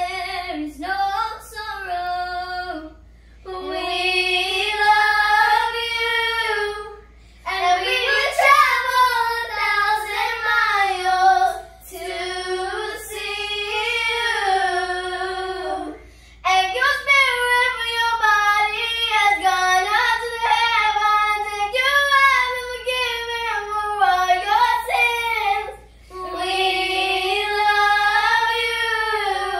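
Young girls singing a slow song together without accompaniment, in long held phrases with short pauses between them.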